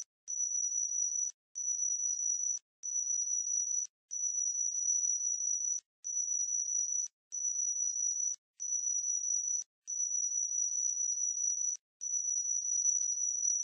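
A single high-pitched electronic tone holding one steady pitch, cut by brief gaps into stretches of about one to two seconds, with faint crackling under it.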